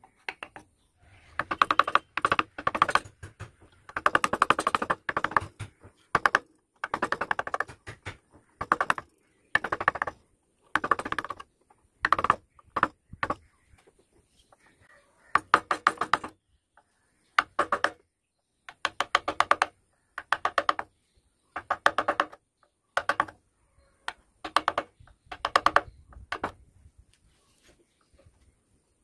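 Wood-carving chisel pushed by hand through wood in repeated short cuts, each stroke a burst of rapid crackling clicks as the blade shaves off chips.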